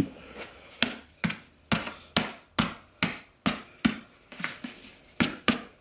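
A snow boot held upside down and banged over and over to knock out anything inside it. It gives a dozen or so sharp knocks at about two a second.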